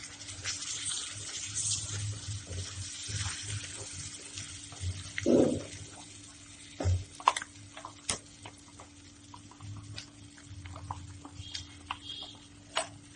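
Wet ground masala paste sizzling in hot butter in a nonstick pan as a wooden spatula stirs and scrapes it. The sizzle is strongest at the start and dies down, with scattered taps and knocks of the spatula and the bowl against the pan.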